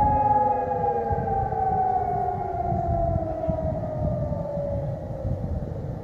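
Civil-defence sirens sounding for a siren test, winding down: several tones slide steadily lower in pitch together and fade away at the end.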